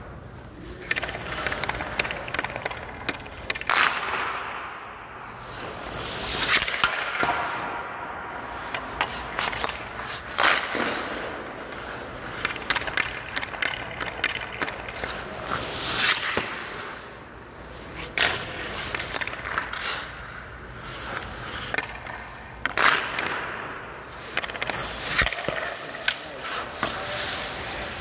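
Hockey skate blades scraping and carving the ice as a goalie pushes and stops across the crease, with a loud ice-spraying scrape every few seconds. Sharp knocks of sticks and pucks are scattered throughout.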